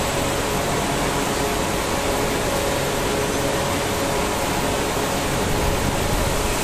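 Steady whir and hum of running workshop machinery with cooling fans, even throughout, with a few faint steady tones in it.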